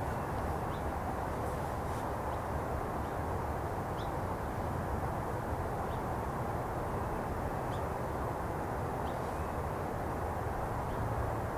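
Steady low outdoor background rumble and hiss, with a few faint, very short high chirps scattered through it.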